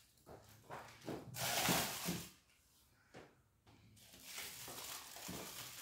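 Plastic chocolate moulds being handled and flexed to release set chocolate: a few light knocks and clicks, with a louder rustle lasting about a second, about a second and a half in.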